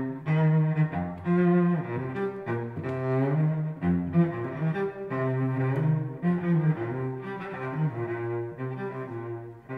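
Solo cello, bowed, playing a quick rhythmic line of short notes in an American fiddle style.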